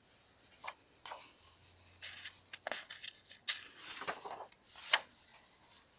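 Pages of a picture book being turned by hand: a string of short, crisp paper rustles and flaps, about seven of them over the first five seconds.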